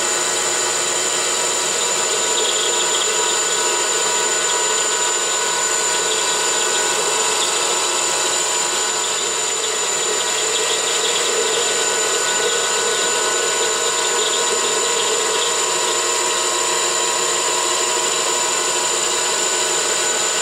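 9x20 metal lathe, converted to CNC, with its spindle driven by a treadmill motor at high speed, taking the finish pass on a hardened bolt: steady machine running with the cutting tool feeding along the part, a steady high whine with many tones over a noisy hum.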